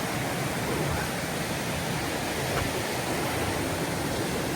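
Waterfall on a mountain creek rushing steadily, an even wash of falling water.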